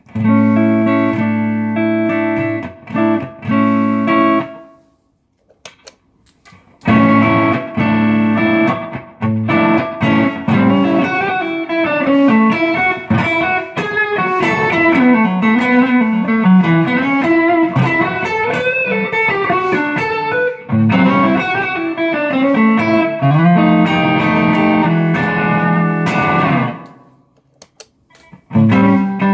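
Electric guitar played through a Mooer Blues Crab blues-overdrive pedal into an amp. It opens with held chords for about four seconds, pauses, then plays about twenty seconds of blues riffs and a lead line with bent notes, stops again and starts up once more just before the end.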